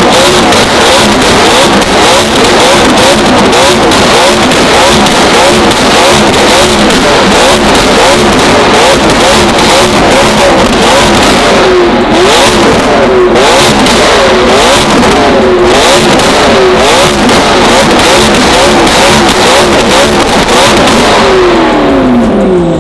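McLaren V8 with a straight-pipe Fi exhaust revved hard over and over, the pitch climbing and dropping about once a second with constant crackling from the pipes. The revs fall away in one long drop near the end.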